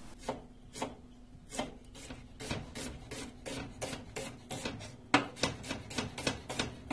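Chef's knife slicing an onion half on a wooden cutting board: a run of knife taps against the board, about three a second, quickening to about five a second near the end.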